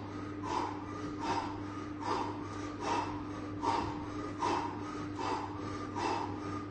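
A man breathing hard and rhythmically while exercising, with a sharp breath about every 0.8 s. A steady low hum runs underneath.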